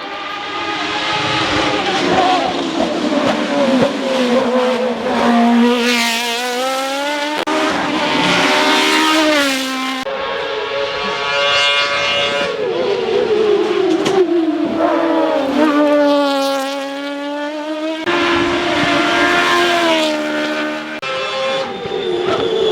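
Hill-climb race car engines revving hard through the gears, the engine note climbing and dropping again and again, with sudden changes in the sound a few times, as from one car to the next.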